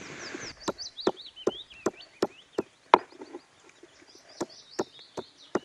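A round stone grinder knocking on a granite grinding slab as garlic and grated coconut are crushed for a masala paste: a run of seven sharp knocks at about three a second, a pause, then four more. Birds chirp in the background.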